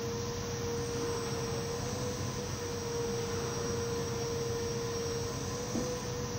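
Steady high-pitched machine hum over a faint hiss.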